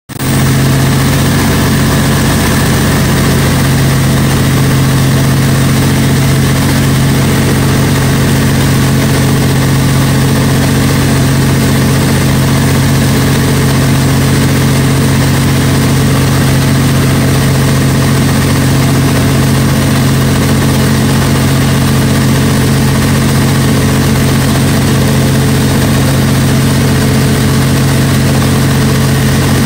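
Cummins NTA-855-G2 turbocharged inline-six diesel of a 300 kW generator set running at its constant governed 1800 rpm, a loud even drone with a strong steady low hum. The set is carrying a partial electrical load, with roughly 110 amps showing on each phase.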